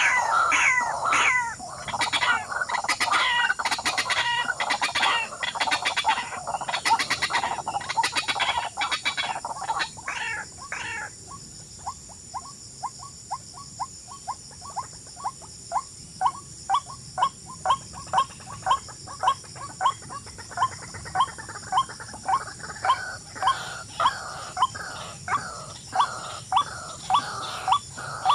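Birds calling: for the first ten seconds or so a dense, harsh chattering of overlapping calls, then a steady run of short rising chirps, about two a second, that grows louder toward the end.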